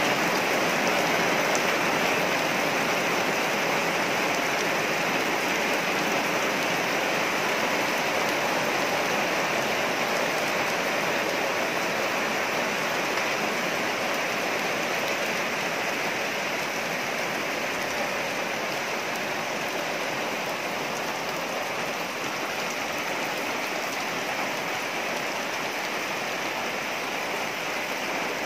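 Steady rain falling on trees and puddled ground: an even hiss with no breaks, easing slightly toward the end.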